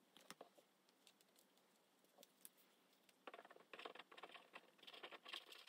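Near silence. From about three seconds in there are faint paper rustles and light taps as hands apply glue to paper cutouts and press them onto a journal page.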